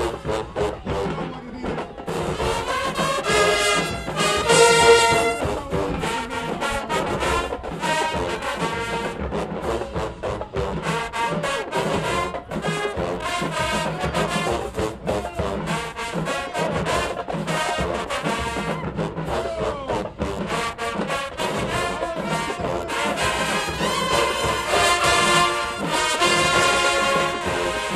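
Marching band playing in the stands: loud brass chords from sousaphones, trombones and trumpets over a drumline's snares and bass drums, with the biggest brass hits about four seconds in and again near the end.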